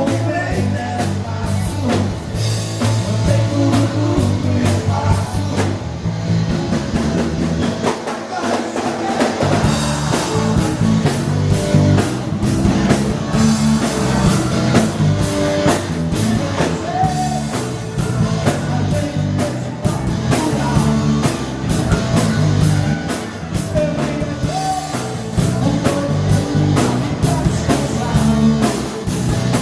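Live dance band playing with drum kit, bass and guitar, with a voice singing over it. The bass drops out briefly about eight seconds in, then comes back.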